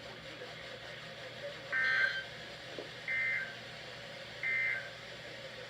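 Three short bursts of EAS/SAME digital data tones from a NOAA Weather Radio broadcast, each a fraction of a second long and about a second and a half apart: the end-of-message code that closes a severe thunderstorm warning. A faint hiss lies under them.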